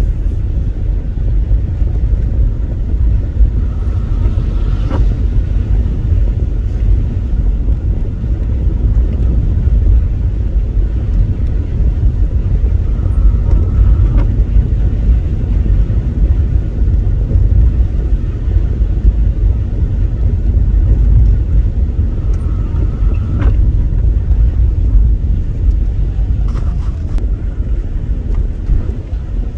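Car driving on a rain-soaked street, heard from inside the cabin: a steady low rumble of road and engine noise.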